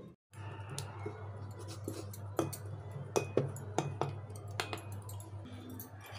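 Metal spoon clinking and scraping against a steel bowl as thick pesarattu (green gram) batter with chopped onion and cumin is stirred. There are several sharp, ringing clinks, most of them between about two and five seconds in.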